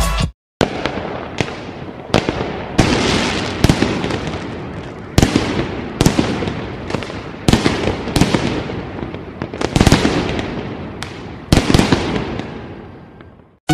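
Fireworks going off: a rapid, irregular run of sharp bangs, roughly one every second or less, each trailing off in crackling. The bursts fade away near the end.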